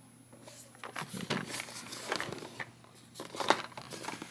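Figure packaging box being handled: light rustling and small clicks and knocks, with one sharper knock about three and a half seconds in.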